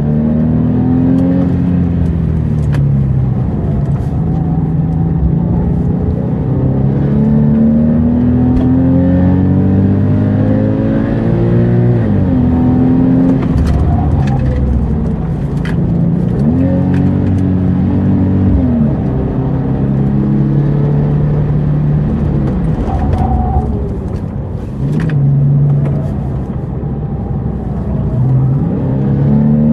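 Porsche sports car's engine heard from inside the cabin while being driven hard on a track. Its pitch climbs under acceleration, drops sharply at each gear change, and falls away several times when it slows.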